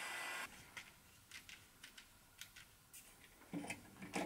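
Heat gun blowing with a steady hiss that cuts off about half a second in. Then faint light clicks and handling knocks from plastic electrical parts being fitted in a metal cabinet, a little louder near the end.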